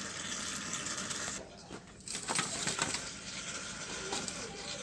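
Hands mixing raw chicken pieces in a wet cornflour, egg and lemon marinade: soft wet rustling and small clicks, pausing briefly about a second and a half in, then resuming.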